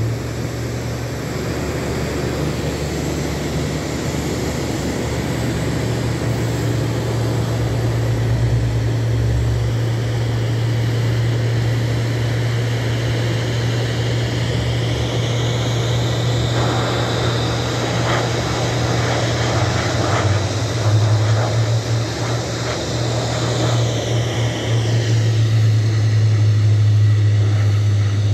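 Airbus A330-300 jet airliner running on the apron: a steady low hum under a jet whine that rises in pitch about halfway through and drops again near the end.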